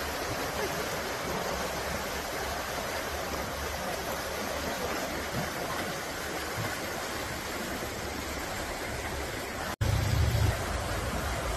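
Shallow river rapids rushing over rocks, a steady hiss of running water. Near the end the sound cuts out for an instant and a louder low rumble comes in for about a second.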